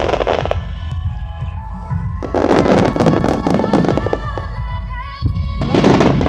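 Fireworks crackling in dense clusters, one from about two to four seconds in and another near the end, over a continuous low rumble of bursts, with music playing through loudspeakers.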